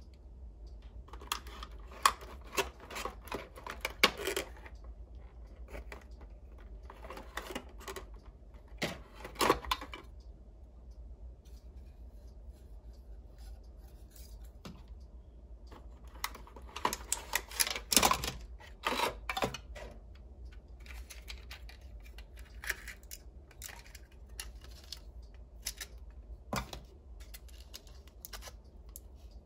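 Small hard plastic toy pieces from a Hello Kitty bakery play set being handled, clicked and tapped together and set down, in bunches of quick clicks with pauses between, over a steady low hum.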